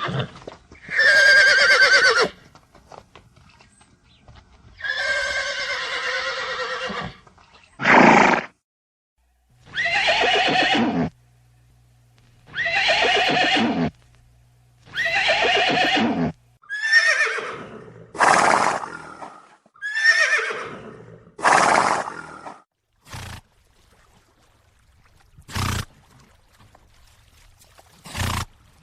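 Horses whinnying: a series of about ten separate calls, each one to two seconds long with a falling, quavering pitch, followed by a few brief sharp sounds near the end.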